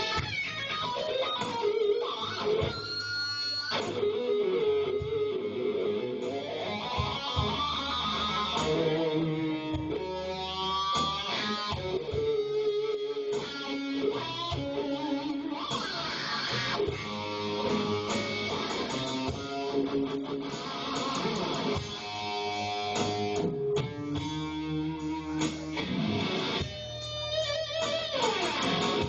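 Live blues-rock band playing an instrumental break: an electric guitar solo with bent, sustained notes over bass and drums.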